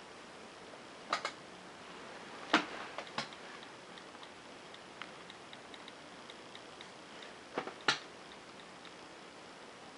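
iPad mini's on-screen keyboard clicking as a Wi-Fi password is typed: a run of faint, quick ticks, about three a second, from about four seconds in until about nine. A few sharper knocks and taps come through as well, the loudest about two and a half seconds in.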